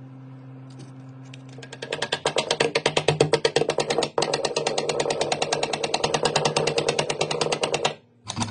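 A hammer striking a steel door hinge in a fast, even run of taps, about ten a second, to bend the hinge so the door stops scraping the floor. The taps start about two seconds in, pause briefly near the middle, and cut off just before the end, over a faint steady hum.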